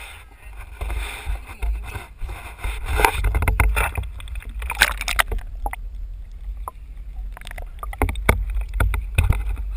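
Water sloshing and splashing around a GoPro on a landing-net handle as the net is swept through the pond and dipped to the surface, with a low rumble and sharp knocks from the handling.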